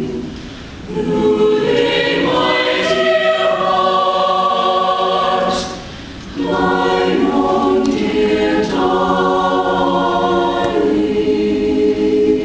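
Chamber choir singing long-held chords in several voice parts, with two brief pauses between phrases, about half a second in and about six seconds in.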